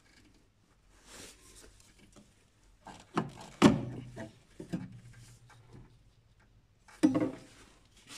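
Plastic power steering fluid reservoir being pried and pulled off its mounting bracket: scraping and rubbing with short plastic-and-metal knocks. The loudest knocks come a little over three seconds in and about seven seconds in.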